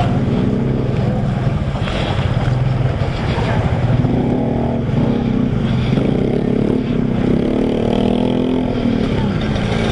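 Motor scooter engine running steadily as it rides through floodwater, its pitch lifting a little now and then, over a steady wash of splashing water and rain.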